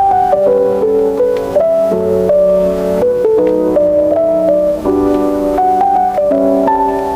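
Keyboard or piano music: chords and a melody in held notes, changing about every half second, with no singing.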